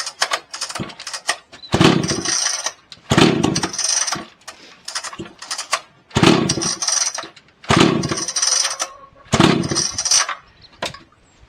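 Chainsaw's recoil starter cord pulled about five times, each pull about a second long, without the engine catching and running.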